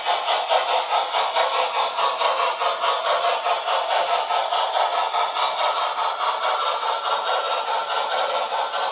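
HO-scale model steam locomotive running along the track, a steady rattling with a fast, even pulse and no deep bass.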